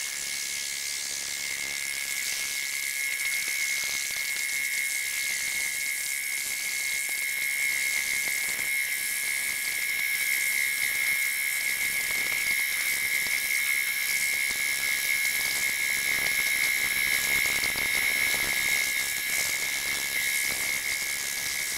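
Portable line boring machine cutting a weld-built steel bore with its boring bar: a steady high-pitched whine over a hiss.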